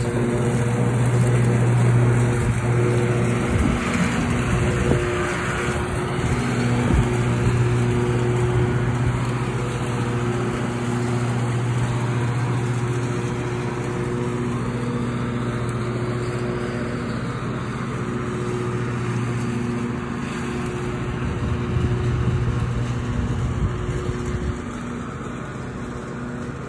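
Lawn mower engine running steadily while mowing a leaf-covered lawn, a constant low hum with overtones that fade in and out.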